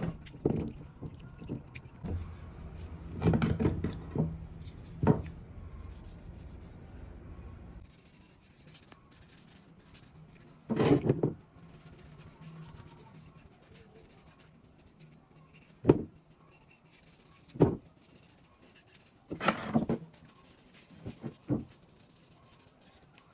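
Intermittent rubbing and scraping of parts being handled, with a few short knocks. A low hum runs under the first eight seconds or so and then stops.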